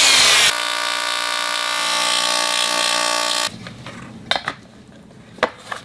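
Circular saw finishing a cut through aluminium plate, then running free with a steady whine for about three seconds before stopping abruptly. After it, a few light clicks and taps of metal parts being handled.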